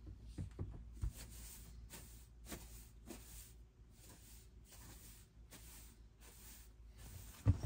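Broom sweeping a floor in faint, short, even strokes, about two a second, with a light knock about a second in.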